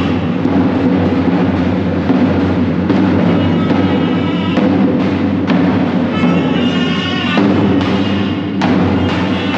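Loud dance music with heavy drumming under a high melody line, played without a break.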